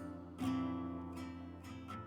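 Recorded song between vocal lines: a guitar chord strummed about half a second in, ringing over steady bass, with lighter strums near the end.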